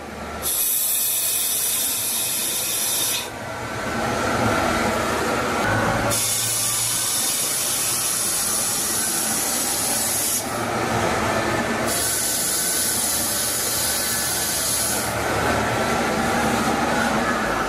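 Metal-cutting noise from a CNC vertical turning lathe turning a cast-iron brake disc: the tool scrapes and hisses steadily against the spinning disc. The sound changes abruptly every few seconds as the cutting passes change.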